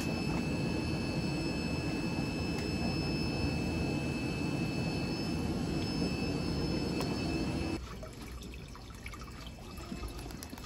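Steady hum and running-water noise of aquarium pumps and filters, with a few faint steady high tones; about eight seconds in it drops in level, leaving a softer trickle of water.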